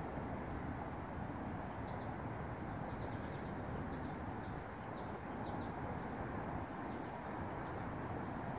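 Steady outdoor rumble and hiss, with a run of short, high bird chirps from about two to seven seconds in.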